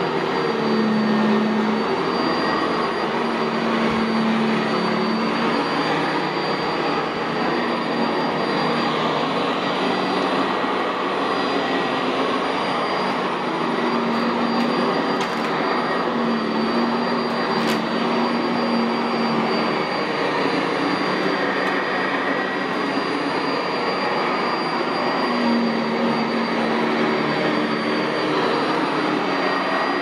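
Sanitaire SC679J commercial upright vacuum running over carpet with its Vibra-Groomer II brush roll: a steady motor drone with a constant high whine and a lower hum that comes and goes.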